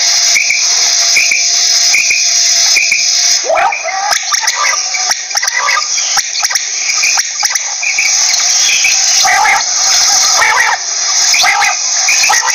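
Quail calling: short repeated notes about twice a second at first, then, from about three and a half seconds in, a busier run of many quick overlapping calls. A steady high-pitched hiss runs under the calls.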